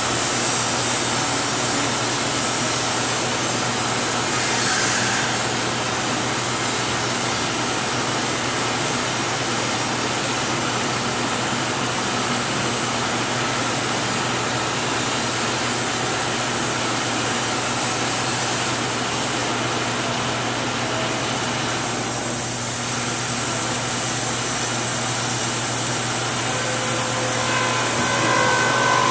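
Sawmill machinery running steadily, the band sawmill and board edger together, an even noise with a constant low hum underneath.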